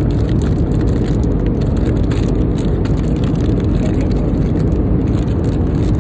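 Airliner cabin noise in flight: a steady, loud low rumble of engines and airflow, with faint scattered clicks over it.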